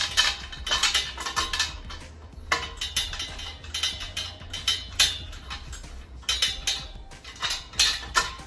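Metal clothing rack parts clinking and knocking against each other as they are fitted together by hand, in repeated irregular clatters.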